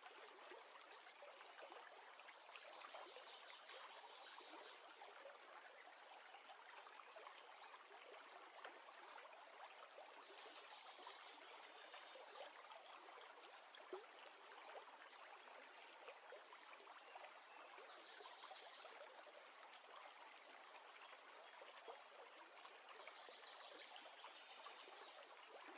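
Very faint, steady running-water ambience, like a trickling stream.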